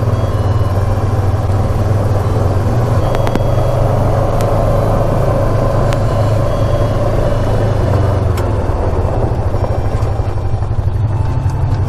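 All-terrain vehicle engine running steadily while riding along a trail, a constant low drone.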